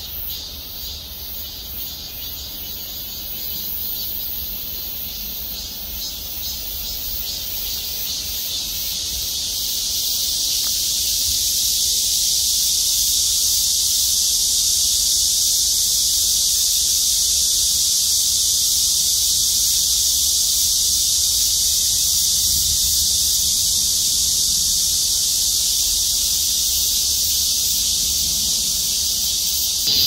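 Chorus of cicadas in the trees, a dense high-pitched buzz. It pulses at first, swells louder about eight to ten seconds in, then holds steady.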